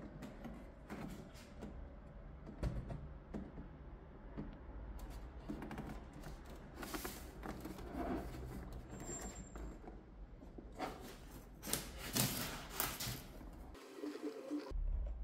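Handling noise from a curved monitor being shifted in its polystyrene foam packaging: uneven scraping and rubbing with scattered clicks and knocks, loudest about seven seconds in and between eleven and thirteen seconds.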